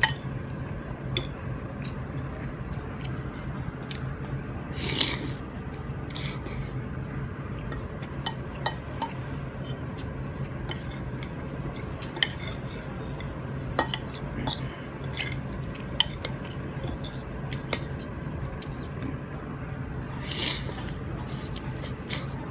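Metal fork and spoon clinking and scraping against a ceramic bowl of laksa noodles as someone eats, with scattered sharp clinks throughout. Two brief hissy sounds, about five seconds in and near the end, over a steady low hum.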